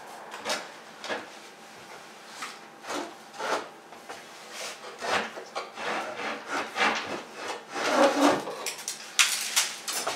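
Granite windowsill plate scraping as it is slid out of the window opening: a run of irregular scrapes, loudest about eight to nine and a half seconds in.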